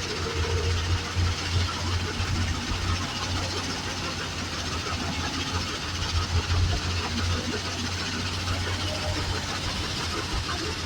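Heavy diesel machinery running steadily at a crushing plant: a constant deep engine hum under a rough, even rattle of machinery.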